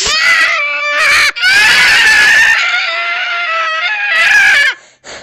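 A long, shrill, high-pitched scream with a wavering pitch, broken once about a second in, then cutting off sharply near the end.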